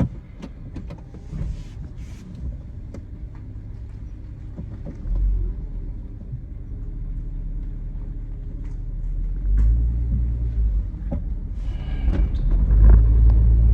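Hyundai Santa Fe being driven: a steady low engine and road rumble that swells louder a few times, around five seconds in, around ten seconds in and most strongly near the end.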